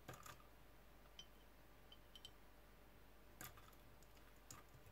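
Near silence with a handful of faint, scattered clicks: steel bearing balls and the tips of pliers ticking against each other and a small plastic box as loose balls are picked out one at a time.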